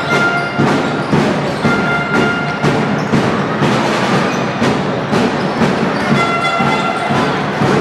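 Music with a steady beat, about two beats a second, and held tones over it.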